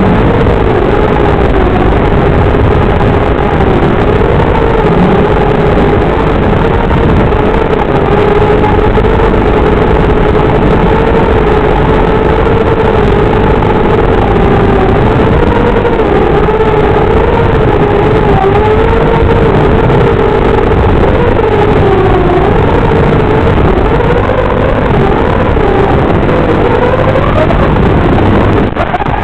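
Brushless motors and propellers of a small 180-size racing quadcopter whining steadily over a rushing noise, the pitch wavering up and down as the throttle changes. Near the end the pitch climbs sharply, then the sound breaks off.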